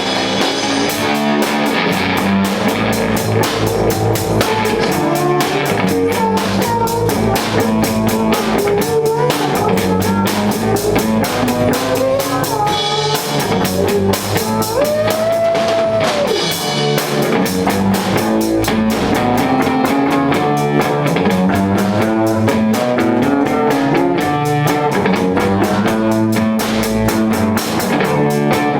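Live rock band playing instrumentally: a pounding drum kit with distorted electric guitar and bass, including one sustained bending guitar note about halfway through.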